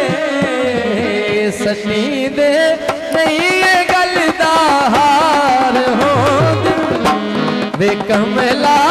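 Live amplified South Asian folk music: a hand-drum beat under a wavering, ornamented melody line.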